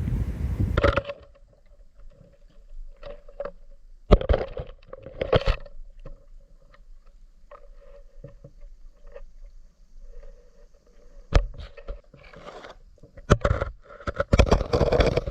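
Wind on an action camera's microphone cuts off about a second in as the camera goes under the water; after that, muffled knocks and scrapes of the waterproof camera housing bumping as it hangs in the water, over a faint steady hum.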